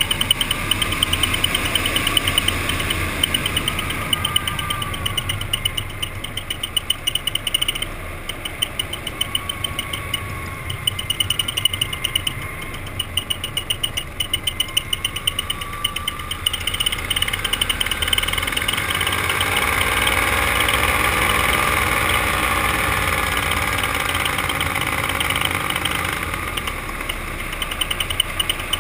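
A powered paraglider's paramotor engine and propeller running in flight, heard from the pilot's position. The engine's pitch rises and falls, and it grows louder for several seconds past the middle of the stretch before easing back.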